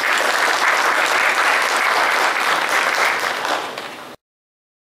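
Audience applauding, dense and steady, tapering a little before it cuts off abruptly about four seconds in.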